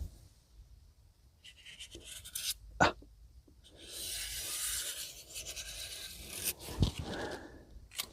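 Marker pen scratching as it is drawn around a sink template to mark the cut-out: short strokes, a sharp click about three seconds in, then a longer stroke in the middle and a knock near the end.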